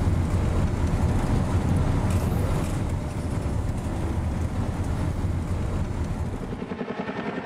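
Loud, steady engine rumble, heavy in the low end. About six and a half seconds in it eases a little and takes on a quick pulsing.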